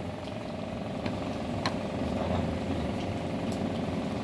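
An engine running steadily at idle, with a single sharp click a little over a second and a half in.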